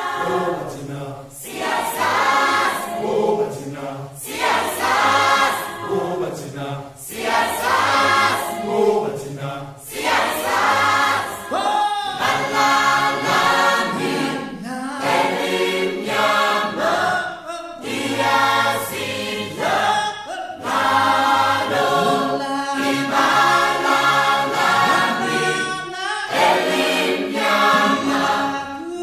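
Choral music: a choir singing.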